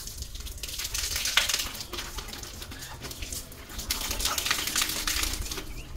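Water splashing during a bucket bath, in two crackly bursts: about a second in and again near the end.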